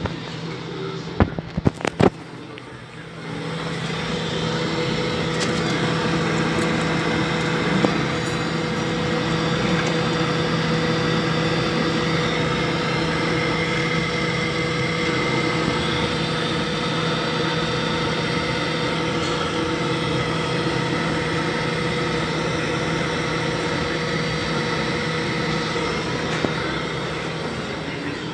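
A few sharp clicks, then about three and a half seconds in a Webasto Thermo Top V auxiliary heater starts up and runs with a steady whirring hum from its fan and burner, just after repair of its control unit and circulation pump.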